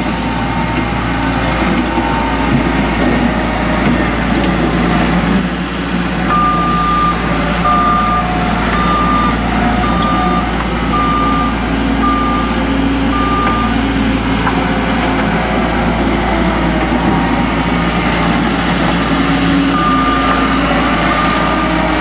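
New Holland LS190 skid steer's diesel engine running steadily as the loader is driven about. Its backup alarm beeps about once a second for several seconds in the middle, and starts again near the end.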